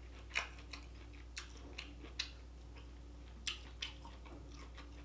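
Close-miked chewing and lip-smacking: a run of sharp, wet mouth clicks at irregular intervals, the loudest about half a second in, over a low steady hum.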